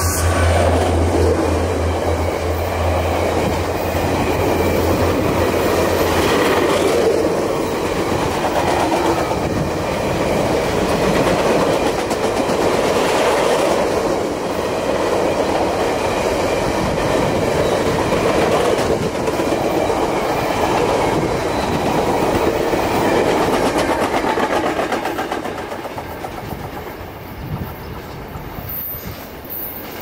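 VIA Rail passenger train's stainless steel cars passing at track speed, a steady rumble and clatter of wheels on the rails, with a low hum that stops about six seconds in. The noise eases near the end as the last car goes by and the train pulls away.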